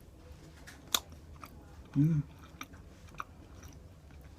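A person chewing food close to the microphone, with scattered small mouth clicks and a sharper click about a second in. About two seconds in there is a brief hummed sound from the voice.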